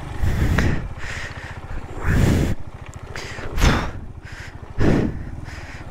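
Suzuki Van Van 125's single-cylinder engine idling as the bike is turned around by hand, with several short, loud rushes of noise over it.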